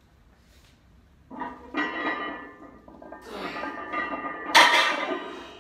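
Iron weight plates clanking and ringing on a heavily loaded hex bar as it is deadlifted. The sound comes in two spells, starting a little over a second in, and the loudest clash comes near the end.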